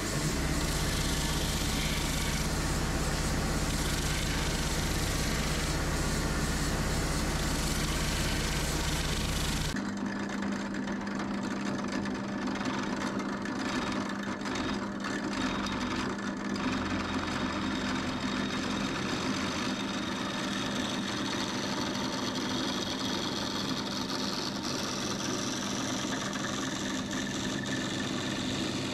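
Spindle sander running as the edge of an ash slab is sanded against the drum. About ten seconds in it gives way to an electric drill running steadily as its long bit bores into the centre of the ash slab.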